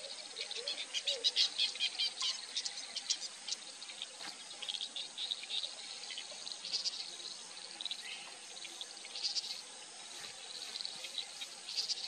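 Outdoor chorus of chirping insects and small birds: many short, high chirps and trills, densest in the first few seconds and then coming in scattered bursts, with a few soft, low wavering calls near the start.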